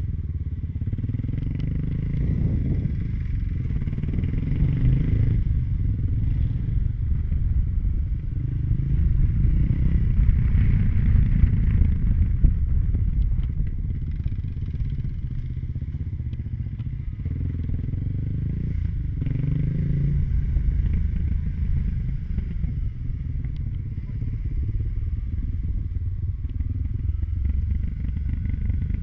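Kawasaki KLX250's single-cylinder four-stroke engine running under way at low speed, heard from on the bike. The revs swell several times as the throttle is opened and then eased off.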